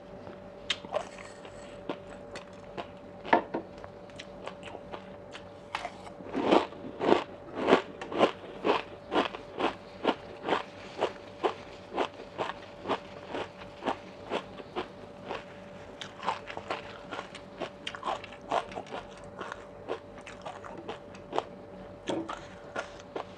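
A person chewing crunchy food close to a clip-on microphone, with crisp crunches about two a second through the middle, sparser at the start and end, over a faint steady hum.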